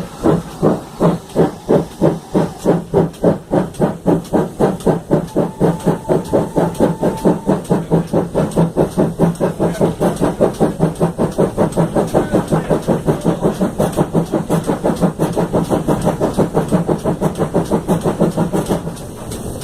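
GWR 94xx pannier tank 9466's steam exhaust chuffing in a steady rhythm, the beats quickening from about two to about four a second as the engine gathers speed, with steam hiss underneath. The beats stop near the end.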